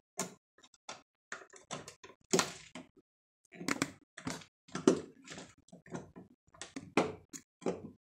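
Irregular clicks and knocks of a GFCI outlet being pushed into a plastic electrical box and fastened with a screwdriver at its mounting screw.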